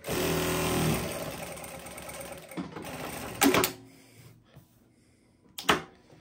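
Jack A6F needle-feed industrial lockstitch sewing machine running a short burst of stitching for about two and a half seconds, then stopping. A sharp clack comes about a second later as the automatic thread trimmer cuts and the presser foot lifts, and another sharp clack comes near the end.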